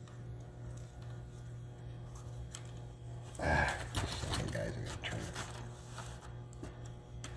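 Faint scraping and clicking of plastic laptop parts and a ribbon cable being handled under a raised palm rest, over a steady low hum. There is a louder, brief rustle about three and a half seconds in.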